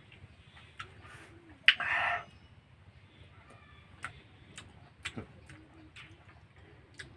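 Sharp wet mouth clicks and lip smacks, about one a second, from mouths working at a bunch of fruit dangled at a baby's lips. There is a short, loud, breathy burst about two seconds in.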